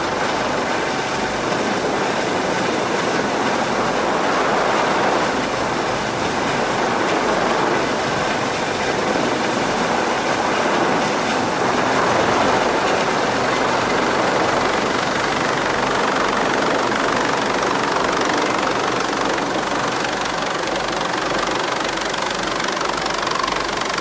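Helicopter hovering low overhead during a hoist winching, its rotor and turbine noise a loud, steady wash of sound with a thin high whine over it.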